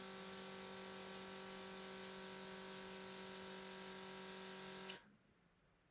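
Cordless nail airbrush spraying gel polish: its built-in compressor gives a steady hum under a hiss of air, and cuts off suddenly about five seconds in.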